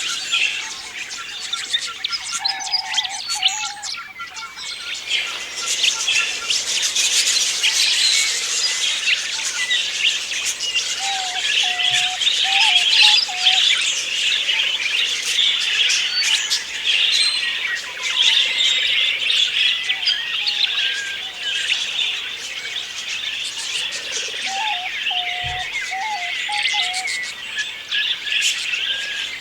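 A flock of budgerigars chattering: a dense, unbroken stream of high chirps and warbles, with a few lower warbled notes breaking through now and then.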